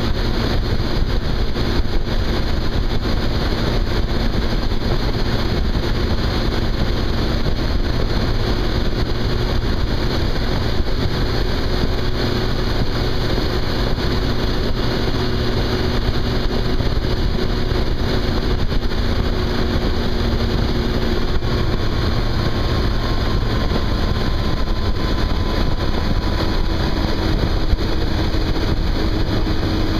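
Yamaha FJR1300's inline-four engine running at a steady highway cruise under a continuous rush of wind and road noise. The engine's pitch shifts slightly about three quarters of the way through.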